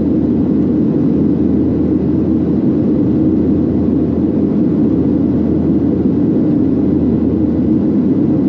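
Steady cabin noise of a Boeing 737-800 in flight, heard from inside the cabin: an even low rumble of airflow and CFM56-7B turbofan engines, with no change in pitch or level.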